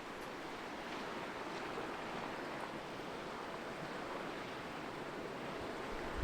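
Steady rushing wash of water. A low bump comes right at the end.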